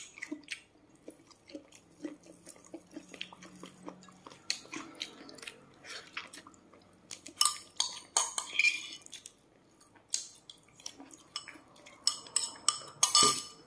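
Eating sounds at a table: a spoon and fingers clicking against a china plate while crispy fried chicken is picked at and chewed. Scattered light clicks, with louder crisp clusters about seven and a half seconds in and again near the end.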